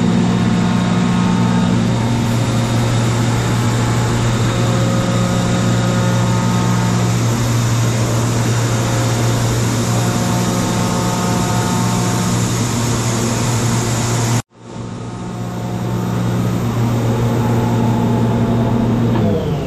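1990 Kaeser DS200 150 HP rotary screw air compressor running with a steady electric hum. The sound breaks off for an instant about three-quarters of the way through. At the very end the hum starts to drop in pitch as the machine begins to wind down.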